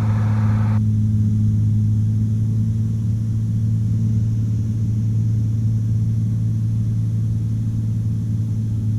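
Cessna 182 engine and propeller droning steadily in level cruise flight, one deep even tone with no change in power. A faint hiss over it cuts off just under a second in.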